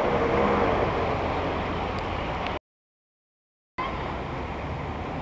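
Small truck's engine running as it drives through floodwater, its wheels churning and splashing the water, with a steady rush of water noise. The sound cuts out completely for about a second in the middle, then the water rush returns a little quieter.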